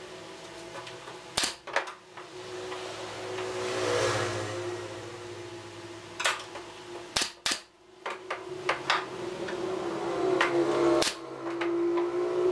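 Several sharp knocks and clicks as pine frame pieces are handled and set against each other on a wooden workbench, over a steady hum.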